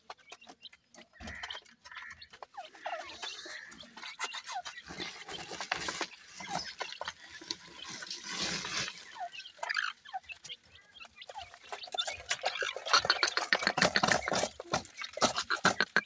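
Grey francolins calling: short chirping notes from the chicks, mixed with small clicks of beaks and feet on gravel, then a louder run of rapid chattering notes about three quarters of the way through.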